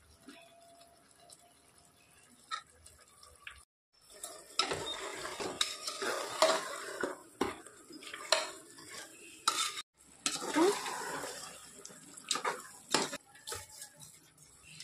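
A metal ladle stirring and scraping chicken masala sautéing in an aluminium pressure cooker, with sharp clinks against the pot and the food frying. It is faint at first; the stirring clatter starts about four seconds in and breaks off briefly near the middle.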